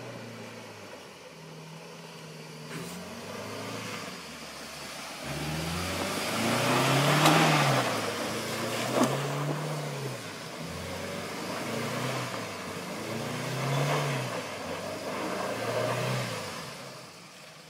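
UAZ Pickup 4x4's engine revving up and falling back again and again, about five times, with a rush of noise at its loudest about seven seconds in.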